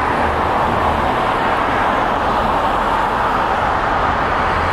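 Steady rushing noise inside a car cabin, loud and even, with a low hum underneath.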